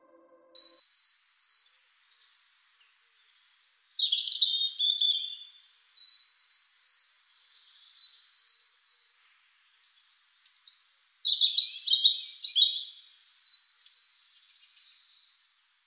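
Small songbirds singing: a busy run of short, high-pitched chirps and trills repeated in quick phrases, starting about half a second in.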